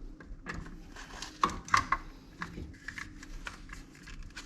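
Irregular sharp clicks and clatter of a hand clamp being set and squeezed on an old brake pad to push a brake caliper piston back in, with two louder clacks near the middle.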